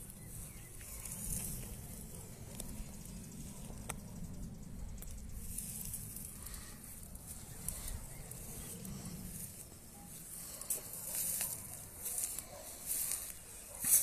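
Tall grass rustling as a lynx moves through it, over a steady low rumble on the phone's microphone; the rustling comes in louder bursts in the last few seconds.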